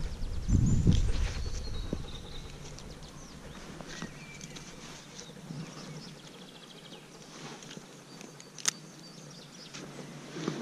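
Outdoor ambience with faint bird chirps. A low rumble, such as wind or handling on the microphone, swells about half a second in and fades over the next second or so. A single sharp click comes near the end.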